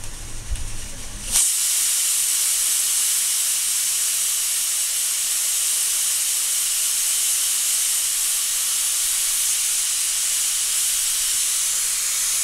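Aluminium stovetop pressure cooker whistling: about a second and a half in, the weight on the vent lifts and releases steam in a loud, steady hiss. This is a sign that full pressure has built up inside, and it is one of the whistles counted while pressure-cooking.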